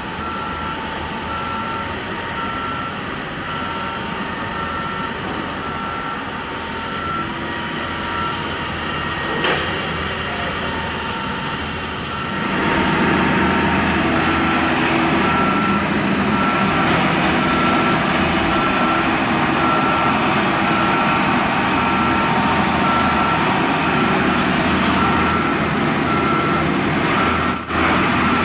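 Hydraulic excavator's diesel engine running, with its travel alarm giving a steady repeated beep throughout. The engine noise grows louder about twelve seconds in, and there is one sharp knock near the ten-second mark.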